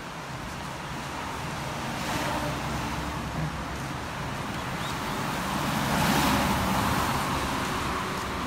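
Road traffic running steadily, with a car passing by that swells to its loudest about six seconds in and then fades.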